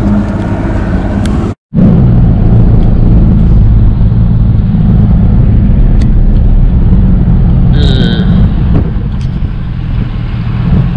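A bass boat's outboard motor running under way, cut off abruptly about a second and a half in. Then a vehicle driving along a highway: a steady low rumble of engine, tyres and wind.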